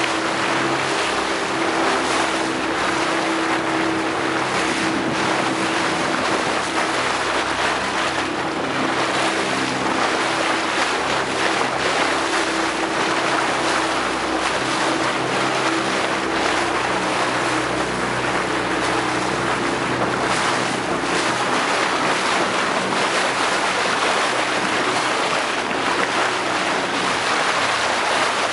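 Small boat's engine running steadily under way, with the rush of water along the hull.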